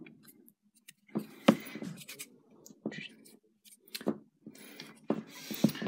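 Vintage TimMee hard-plastic toy tank being handled and turned over in the hands: scattered light clicks and short scrapes of plastic.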